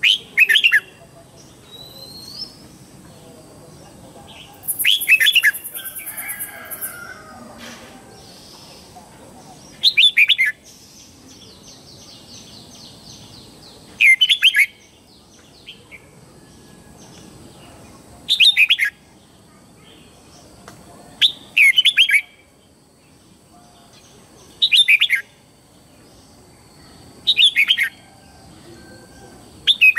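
Red-whiskered bulbul singing its morning song: short, loud whistled phrases that fall in pitch, about eight of them, repeated every three to five seconds.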